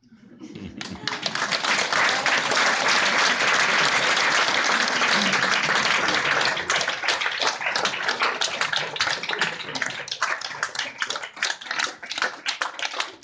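Audience applauding: the clapping swells within the first second, stays thick for several seconds, then thins into more separate claps toward the end.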